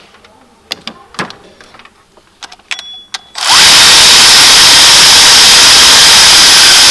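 A few light clicks and taps of tool handling, then about halfway through a power tool spins up and runs steadily and loudly for about three and a half seconds before cutting off sharply, backing out the 14 mm idler pulley bolt.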